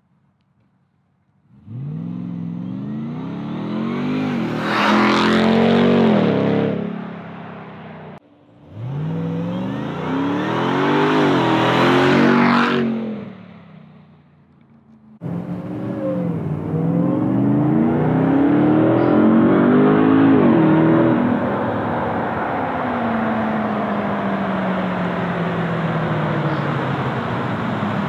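Supercharged 6.2-litre Hemi V8 of a 2021 Ram 1500 TRX driving past at speed in separate takes. There are two fly-bys, each building to a loud peak and dropping in pitch as the truck passes. Then comes a longer run in which the engine note holds and then eases off, falling in pitch in the second half.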